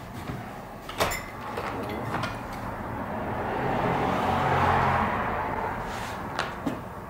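A door latch clicks about a second in as a shop's front door is pulled open, and street traffic noise swells in through the doorway, loudest about two-thirds through as a vehicle passes, then fades. A couple of sharp knocks come near the end.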